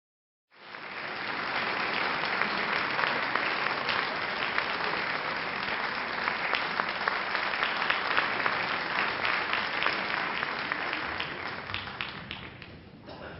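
Concert-hall audience applauding, coming in suddenly about half a second in, holding steady, then thinning to a few scattered claps and dying away near the end.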